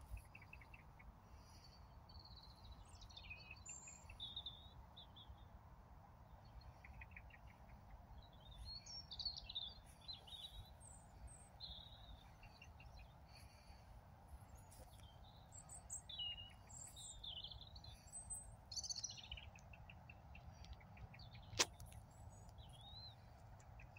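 Faint birds chirping and calling on and off, over a steady low rumble. A single sharp click sounds near the end.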